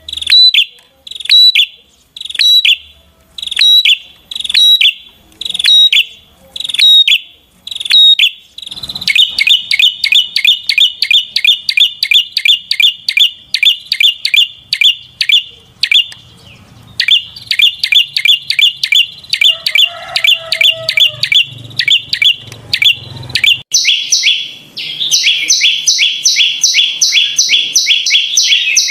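Prinia (perenjak) singing loudly: short bursts of sharp, high notes about once a second, then after about eight seconds a fast, unbroken run of rapid notes with a brief pause partway. Near the end the run turns louder and higher.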